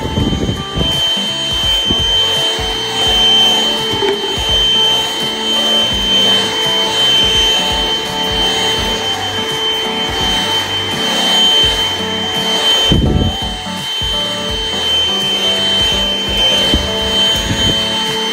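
AIRBOT Supersonic 3 cordless stick vacuum running with a steady high whine, under background music.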